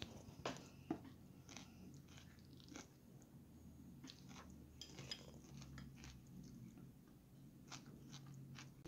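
Faint crunching as a mouthful of coleslaw (shredded cabbage) is chewed, with a few light clicks of a metal fork against the bowl.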